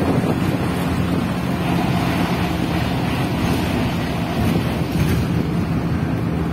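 Wind rushing over the microphone at a moving vehicle's open window, over a steady drone of engine and road noise.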